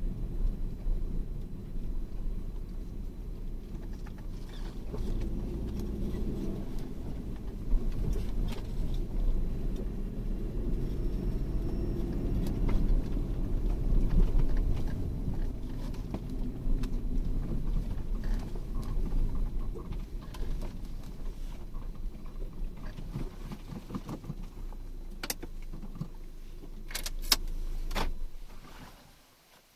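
A vehicle driving slowly over a rough track, a steady low rumble with scattered knocks and rattles. A few sharp clicks come near the end, then the sound fades out.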